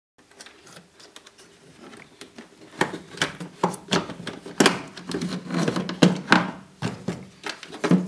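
Clicks, knocks and rattles of hard plastic as hands unclip the tumble dryer's drain pump unit and work it out of its plastic water trough. A run of sharp clicks, sparse at first and coming thick and loud from about three seconds in.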